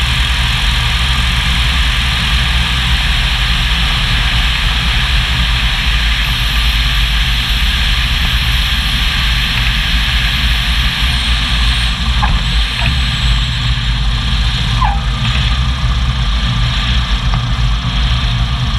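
Single-engine propeller plane's piston engine running steadily at low power, mixed with a loud rush of airflow over an outside-mounted camera, through the final approach, touchdown and rollout on the runway.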